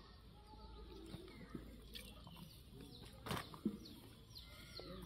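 Faint handling sounds of a broiler chicken's skin and feathers being pulled off by hand, with one sharper tear or rustle about three seconds in. Small birds chirp faintly near the end.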